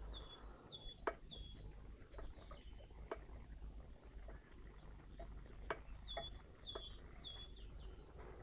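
A small songbird calling in two runs of three short high notes, one at the start and another around six seconds in. A few sharp taps fall in between.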